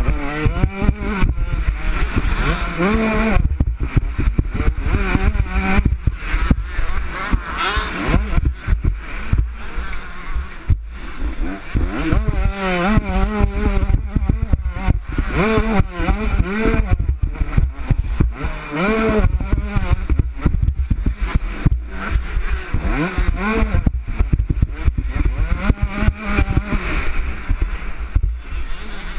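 Motocross bike engine revving hard and dropping back again and again as it accelerates, shifts and slows around a dirt track. Heavy wind rumble and frequent knocks from the bumps come through the helmet-mounted camera.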